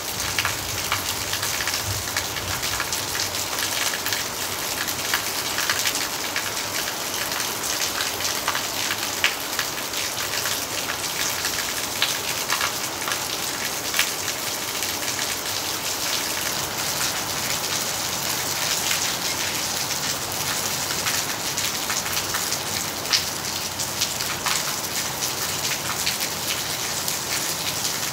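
Heavy rain falling steadily: a dense hiss of rain with many sharp, separate drop hits.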